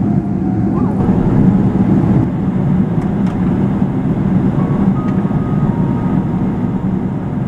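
Steady low rumble of an Airbus A330 cabin, with engines and air conditioning running, heard from inside the airliner as it taxis after landing.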